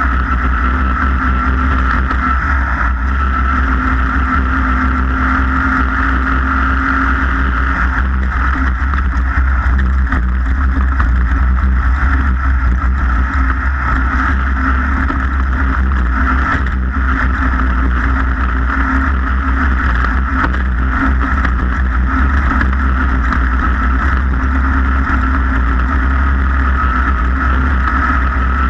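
Racing boat's engine running at a steady pitch, with no revving or letting off.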